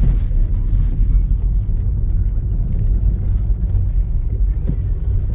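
A car driving along, a steady low rumble of engine and road noise.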